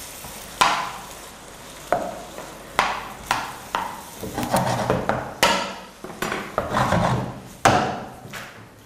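Slotted metal spatula scraping and knocking against a frying pan in irregular strokes, about one or two a second, as potatoes in tomato sauce are stirred, over a light sizzle.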